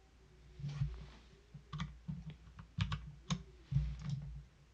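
Soft clicks of a computer mouse and keyboard while objects are selected on screen: about eight scattered clicks, some in quick pairs, each with a dull low thud.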